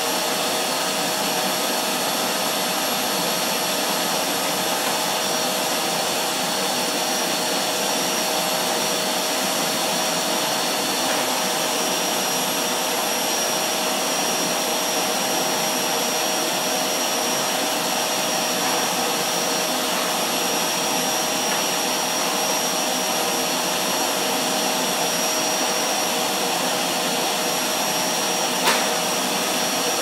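Canister vacuum cleaner running steadily with a constant whine as its floor tool is pushed over a door mat. A single short click sounds near the end.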